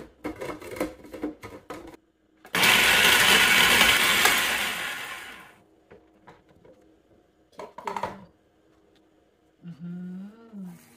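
Cuisinart food processor: plastic clicks and knocks as the lid and pusher are fitted, then the motor runs loudly for about two seconds pureeing a chilli dipping sauce and winds down. A few plastic clicks follow as the lid is taken off near the end.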